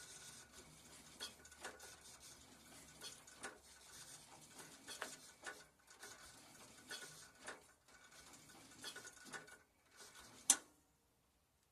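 Faint, irregular clicks and rustles of hands working the controls, with one sharp click about ten and a half seconds in; no engine is running or cranking.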